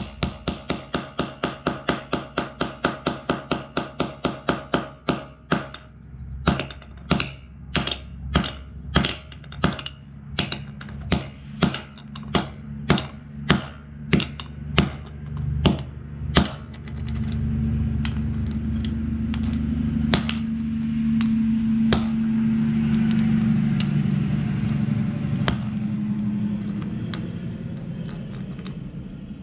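Claw hammer striking a small plastic piece of a Bluetooth speaker on a concrete floor. Quick taps come about four a second, then slower, louder blows about two a second, stopping about sixteen seconds in. After that a steady low drone swells and fades, with a few single taps.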